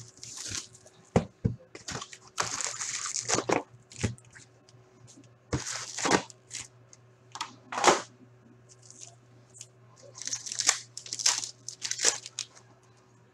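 Hockey card packs being torn open by hand: wrappers crinkling and tearing in irregular bursts, with sharp clicks as the cards are handled, over a steady low hum.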